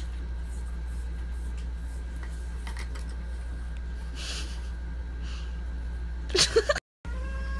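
Steady low room hum with little else, then a short voice sound near the end that cuts off suddenly.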